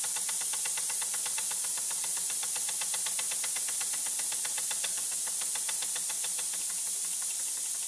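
1950 Fleischmann toy steam engine's oscillating (wobbler) cylinder running on compressed air at about 9 psi: a rapid, even train of exhaust puffs over a steady hiss of air leaking from the loose steam feed pipe and fittings.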